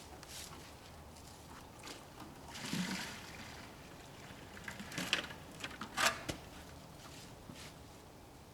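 Maple sap sloshing and splashing in a bucket, with a swell about a third of the way in. It is followed by a cluster of sharp knocks and splashes a couple of seconds later.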